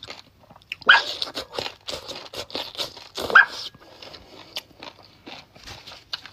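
Wet chewing and sucking on sauce-covered chicken feet: soft smacking and clicking throughout, with two louder slurps, one about a second in and one past the middle.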